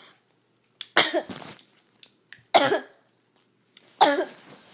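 A girl coughing hard: three loud, harsh coughs about a second and a half apart.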